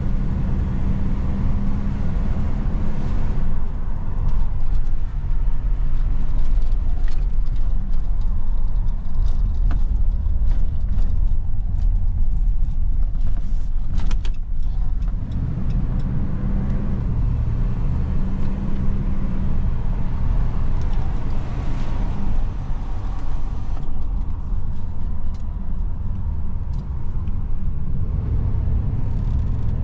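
2011 Dodge Ram 1500 pickup running on the move, a steady low engine drone whose pitch rises and falls a couple of times.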